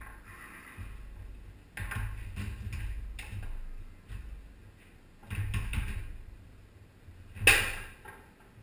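Foosball play on a Tornado table: quick runs of hard knocks of the ball and plastic men against each other and the table, with a low rumble of rods sliding, then one loud sharp bang near the end.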